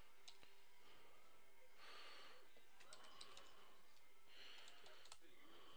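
Near silence: room tone with two soft breaths into the microphone, about two seconds and four and a half seconds in, and a few faint clicks.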